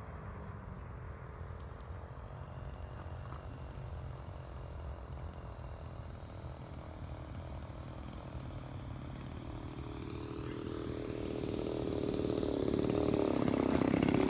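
52cc Turnigy side-draft gas engine of a 103-inch giant-scale RC Piper Super Cub model running steadily as the plane comes in to land. The engine gets louder over the last few seconds as the plane comes in low and close over the runway.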